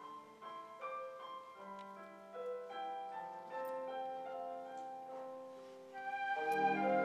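Digital piano playing a slow, quiet solo passage of held, overlapping notes. About six seconds in, the wind band comes in louder underneath it.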